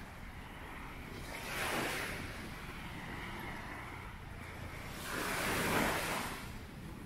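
Sea waves breaking on the shore: two washes of surf swell and fade about four seconds apart, over a steady low rumble of wind on the microphone.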